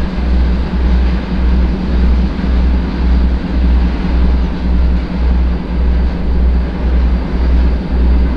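2M62 twin-section diesel locomotive's 14D40 two-stroke V12 engines pulling a loaded coal train: a deep drone throbbing evenly about twice a second, over a steady rumble from the train.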